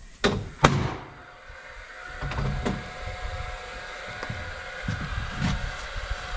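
Two sharp knocks, the second louder, then from about two seconds in an engine running steadily with a constant whine.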